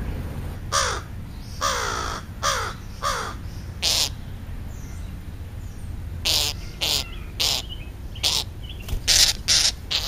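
Crows cawing repeatedly: four falling caws close together in the first three seconds, then a string of shorter, harsher calls through the second half.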